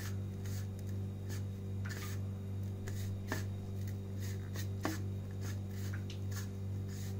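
Fingers rubbing and stirring a dry masala of ground spices and chili flakes in a ceramic plate: soft, gritty rustling in irregular strokes. A steady low hum runs underneath.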